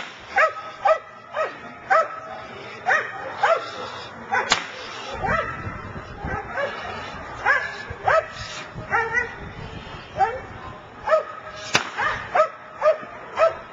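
Young protection-training dog barking repeatedly at the helper it is lunging at, one or two barks a second, each bark dropping in pitch. Two sharp cracks cut through the barking, one about four and a half seconds in and one near the end.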